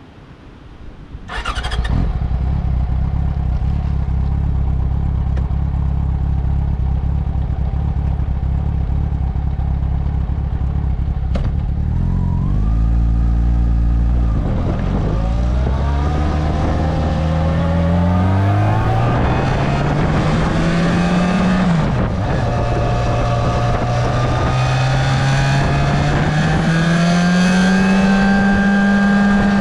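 Yamaha Fazer 6's 600 cc inline-four on its stock exhaust, starting about a second and a half in and idling evenly. Near the middle there is a click and a short rev. It then pulls away with the pitch rising through the revs, drops once at an upshift, and climbs again to a steady note near the end.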